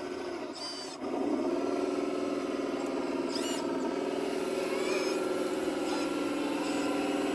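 Radio-controlled construction model's motors and hydraulic pump running as a steady hum that gets louder about a second in, as the machine is put under load.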